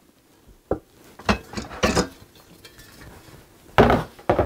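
Steel arms of a full-motion TV wall mount being folded shut, metal parts clinking and clanking against each other in a handful of separate knocks, the loudest two near the end.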